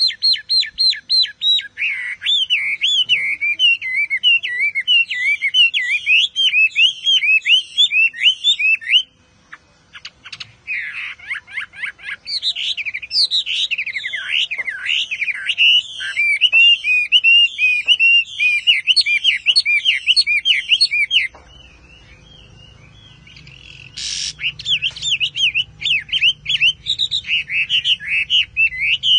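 Caged Chinese hwamei singing a long run of fast, slurred whistled notes, with a brief break about nine seconds in and a pause of a couple of seconds later on before the song resumes.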